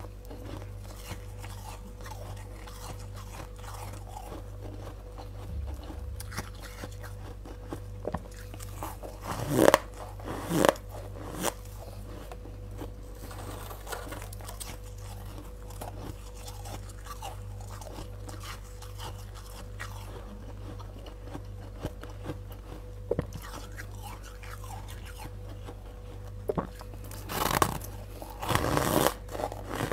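Soft freezer frost being bitten and chewed, crunching in scattered bursts: a few loud crunches about ten seconds in and another cluster near the end, with quieter chewing between. A faint steady hum runs underneath.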